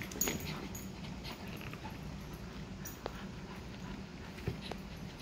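A dog mouthing and worrying a toy, with a few soft knocks and faint whines, over a steady low hum.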